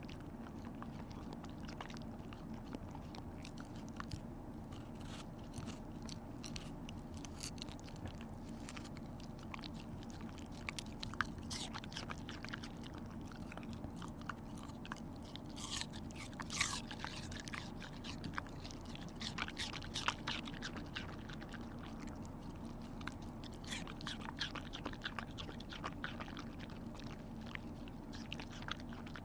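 Shiba Inu crunching and chewing pieces of raw pear: irregular crisp crunches, thickest in the middle stretch, over a steady low hum.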